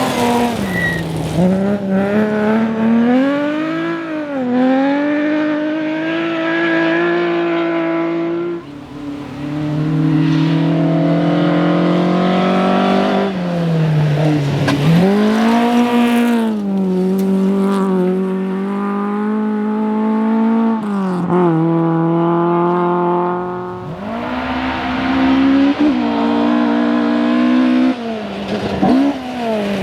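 Rally car engines revving hard on a stage, the pitch climbing and dropping repeatedly with gear changes and lifts off the throttle.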